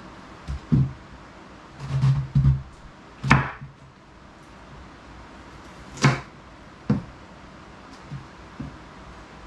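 Kitchen knife cutting white cabbage on a wooden chopping board: irregular thumps and knocks of the blade going through the leaves onto the board, the sharpest about three and six seconds in.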